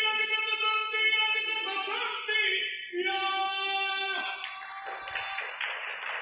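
Singing with several voices holding long, steady sung notes; the song stops about four seconds in, and a broad rush of noise follows.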